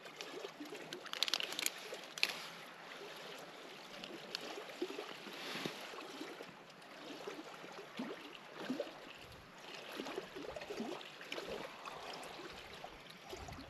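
Faint lakeside ambience: water lapping and trickling at the shore, dotted with scattered small clicks and crackles.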